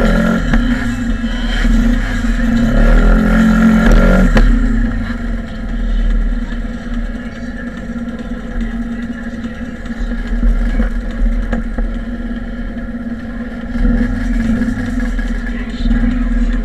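Motorcycle engines idling, with the throttle blipped so the revs rise and fall, twice in the first few seconds and again about fourteen seconds in. A single clunk about four seconds in.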